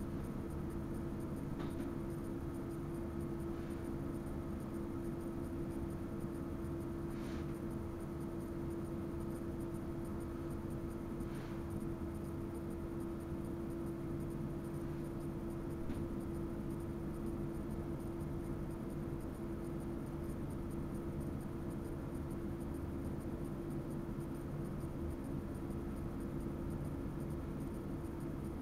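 Electric passenger train running, heard from inside the driver's cab: a steady low rumble with a constant hum, and a few faint short clicks or squeaks every few seconds.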